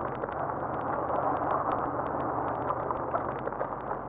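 1978 Cadillac Seville San Remo convertible driving slowly: steady road and wind noise with many small crackles scattered through it.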